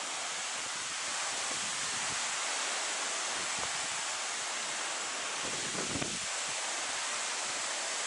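Steady rushing hiss of water and wind, with wind buffeting the microphone in low gusts about five and a half seconds in.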